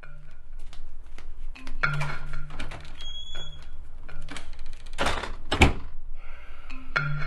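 A run of knocks and clicks with two loud thumps about five seconds in, over a low pulsing hum.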